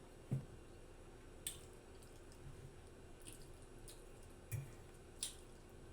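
Faint wet mouth smacks from chewing food, about six short separate clicks spread a second or so apart.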